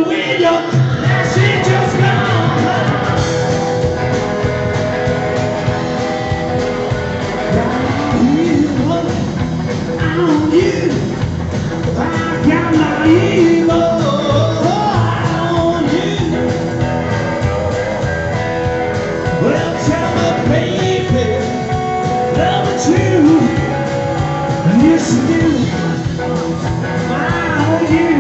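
A rockabilly band playing live: upright double bass and drums driving a steady beat, with a man's voice singing in places.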